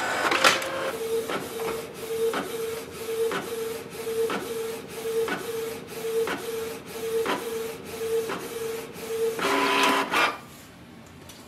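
Canon PIXMA TS3700 inkjet printer printing a nozzle check pattern: the print head carriage shuttles back and forth with a whine pulsing about twice a second and a light click at each pass. Near the end comes a louder, brief whir as the sheet is fed out.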